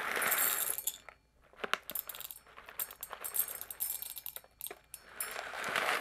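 Whole coffee beans poured from a paper bag into a small stainless steel dosing cup, dropping in as scattered clicks and clinks while the dose is weighed out. The paper bag crinkles at the start and again near the end.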